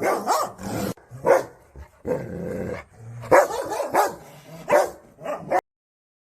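Dog barking repeatedly in short woofs, with growling between the barks. The sound stops abruptly near the end.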